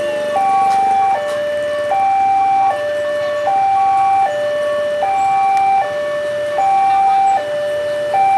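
Railway level-crossing warning alarm sounding its two-tone electronic signal, alternating a lower and a higher tone about every 0.8 s, the higher tone a little louder. It is warning that a train is approaching the crossing.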